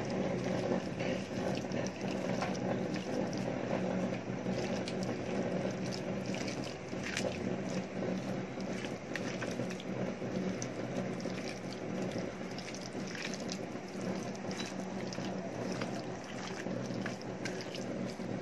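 A hand squishing and mixing raw prawns with chili powder and ginger-garlic paste in a steel plate: wet squelches and light irregular clicks and scrapes against the steel, over a steady hum.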